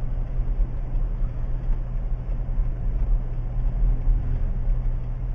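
Car interior noise while driving: a steady engine drone with tyre and road rumble, heard from inside the cabin.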